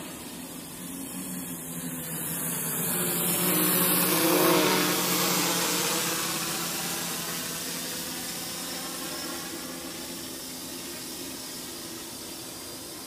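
FPV quadcopter's motors and propellers humming steadily. The sound swells loudest about four seconds in, its pitch bending as the drone passes close, then fades as it flies away.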